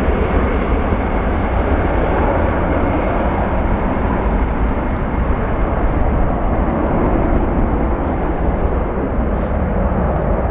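Jet engines of an easyJet Airbus A320 on takeoff, a steady, loud noise with a thin high whine that slowly fades as the aircraft moves away. Low wind rumble on the microphone runs underneath.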